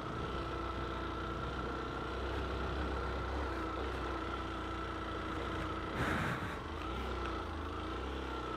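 Motorcycle engine running steadily while riding, its pitch wavering a little with the throttle, with a short rushing whoosh about six seconds in.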